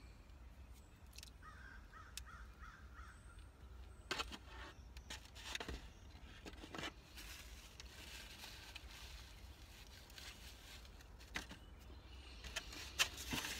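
Quiet eating sounds as a jelly-topped biscuit is bitten and chewed, with a few soft clicks. A bird calls faintly outside the car a second or two in.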